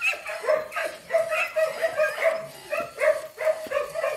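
A dog barking over and over in quick, short yaps, about two or three a second.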